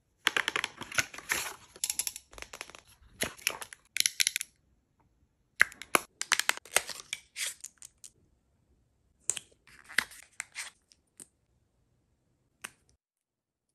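Packaging rustling and crinkling in several short bursts as boxes and products are handled and drawn from a paper shopping bag, with a single light click near the end.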